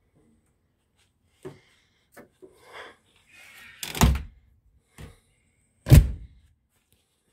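Truck camper's entry door being handled and shut: a few light clicks and a rustle, then two heavy thuds about two seconds apart, the second the loudest.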